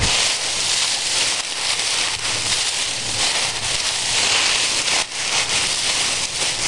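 Dry fallen leaves crackling and rustling as a gloved hand rakes and pushes through a thick layer of leaf mulch, with a single thump right at the start.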